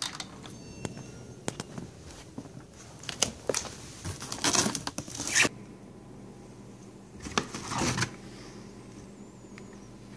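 Handling noises: a scatter of sharp clicks and several rustling, scraping swishes, the longest a little before the middle.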